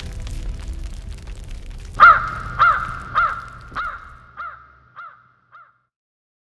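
A crow cawing about seven times in a steady rhythm, a little over half a second apart, each caw fainter until it fades out. Before the first caw, a wood fire crackles over a low rumble.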